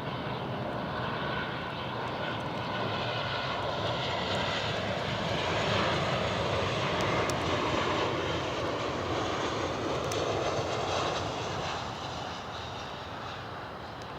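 Jet engines of an arriving Qantas Boeing 737-800 (CFM56-7B turbofans) roaring as the airliner passes. The sound swells to its loudest about six to eight seconds in, then eases off, with faint gliding whines riding on the roar.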